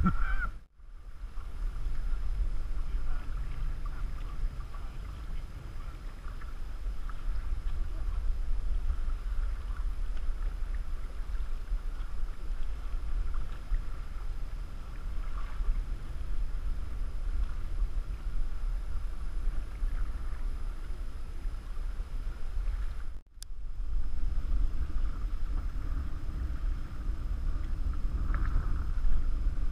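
Wind rumbling on the microphone over choppy lake water sloshing and lapping against an aluminum Grumman canoe as it is paddled. The sound drops out briefly twice, about a second in and near 23 seconds.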